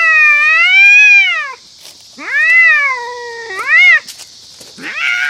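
A cat yowling in long, drawn-out meows that rise and fall in pitch. There is one long call, then a second call with a short rising yelp after it, and a third begins near the end.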